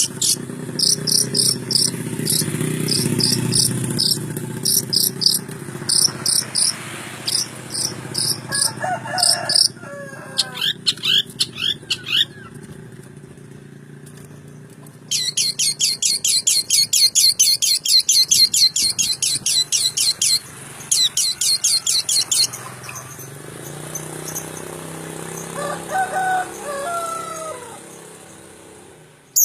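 Long-tailed shrike (cendet) singing: rapid runs of high, repeated chattering notes in bursts separated by short pauses, with a few lower sweeping calls in between.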